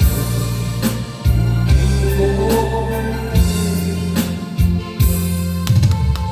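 Instrumental passage of a Korean trot song: a steady beat of drum hits over a sustained bass line, with a keyboard melody on top and no clear singing.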